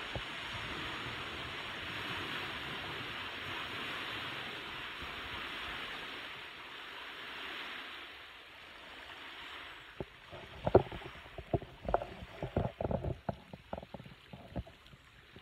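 Small lake waves washing onto a pebble shore, a steady hiss that fades after about eight seconds. From about ten seconds in, a run of sharp, irregular clicks and knocks, the loudest about eleven seconds in.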